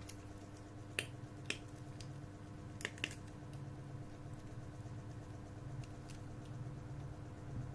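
Four sharp clicks, like small plastic parts being handled, over a steady low electrical hum.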